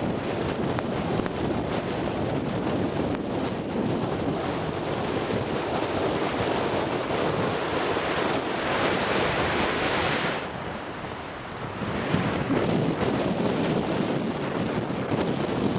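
Strong gusty wind blowing across the microphone: a steady rushing noise that briefly eases a little past the middle.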